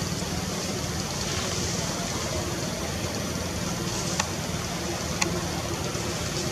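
Steady low hum under an even hiss, with two short sharp clicks about a second apart in the second half.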